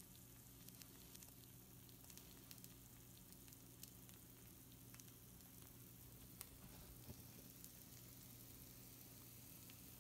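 Pizza rolls sizzling faintly on a baking sheet, with scattered small crackles and pops where cheese has leaked out onto the pan. A low steady hum runs underneath.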